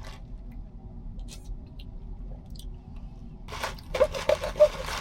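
Sipping a drink close to the microphone: a few seconds of faint small mouth clicks, then a short run of noisy slurps and smacks near the end.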